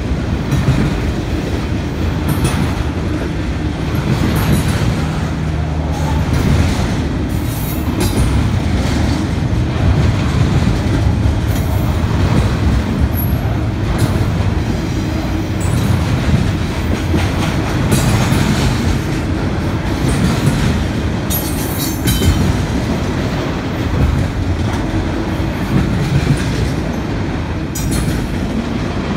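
Double-stack intermodal container train rolling past: a steady low rumble and rattle of the well cars, with wheels clacking over the rail joints and a brief high wheel squeal now and then.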